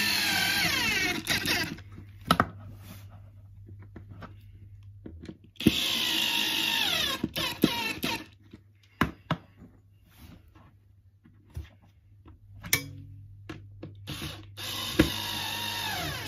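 Cordless drill-driver screwing metal pegs into a chipboard furniture panel in three short runs. Each run is a motor whine that falls in pitch as it goes. Small clicks and knocks of parts being handled come between the runs.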